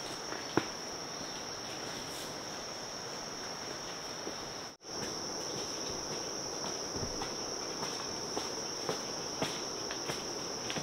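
Forest insects chirring in a steady, unbroken high-pitched drone, with a few faint clicks. The sound cuts out for an instant just under halfway through.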